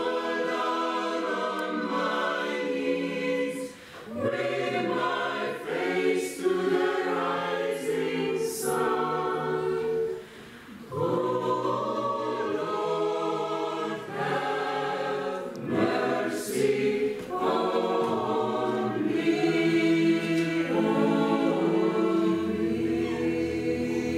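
Church choir singing a hymn, with brief pauses between phrases about four and ten seconds in.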